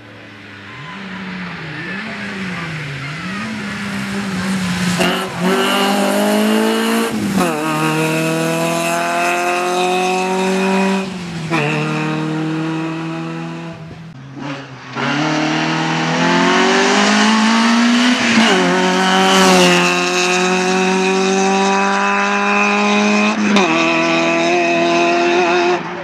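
Peugeot 106 rally car engine at full throttle, revving up through the gears with a quick drop in pitch at each upshift. About fourteen seconds in it lifts off briefly, then runs hard at high revs again.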